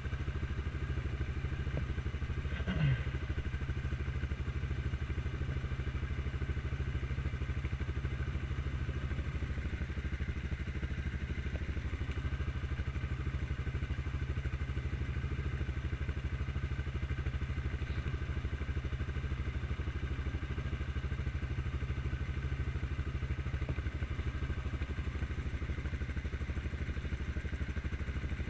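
Single-cylinder four-stroke ATV engine idling steadily. There is a brief falling sound about three seconds in.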